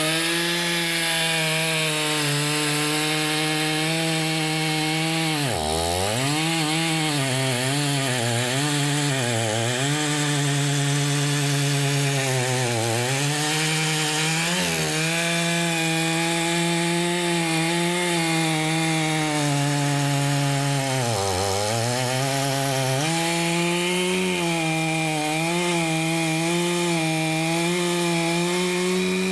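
Professional Stihl chainsaw's two-stroke engine running at full throttle while cutting through a large timber. Its pitch sags repeatedly as it bogs under the cut, dropping hardest about six seconds in and again about twenty-one seconds in, then recovering.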